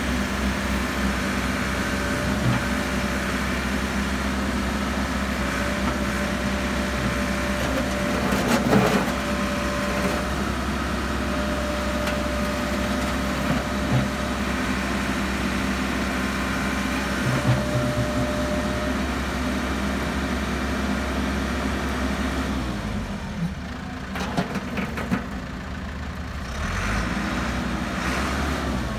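Caterpillar 426 backhoe loader's diesel engine running steadily while the backhoe arm is worked, with a higher whine coming and going over it. About three-quarters of the way through, the engine drops to a lower, quieter idle, and a few knocks follow.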